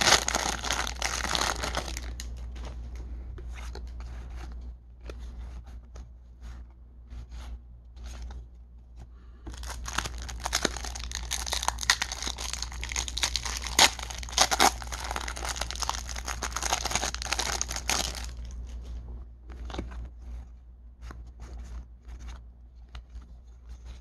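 Crinkly plastic wrapper of a baseball card pack being torn open and crumpled, in two long crackling spells, one right at the start and one in the middle. Between and after them come scattered light ticks of the cards being handled and shuffled through.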